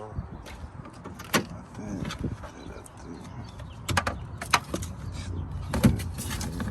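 Sharp clicks and knocks from a car door and its interior trim being handled: one about a second in, a quick cluster around four seconds in and two more near the end.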